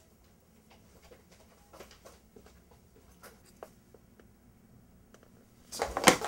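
Faint scattered ticks and rustles of handling in a quiet room. Near the end a sudden, much louder crackling rustle starts.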